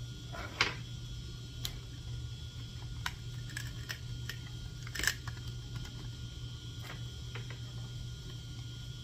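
Scattered clicks and knocks of cable plugs and guitar effect pedals being handled and fitted on a small aluminium pedalboard while it is wired up. The loudest clicks come about half a second in and at about five seconds.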